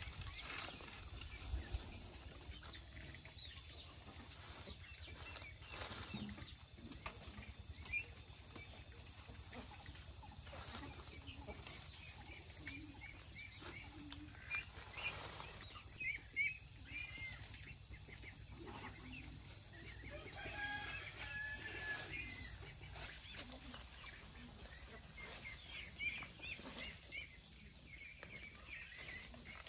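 Rural outdoor ambience: a steady high-pitched drone with scattered bird chirps and a few soft knocks.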